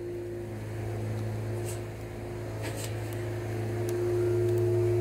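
A steady mechanical drone: a low hum with a few held tones above it, swelling slightly about four seconds in.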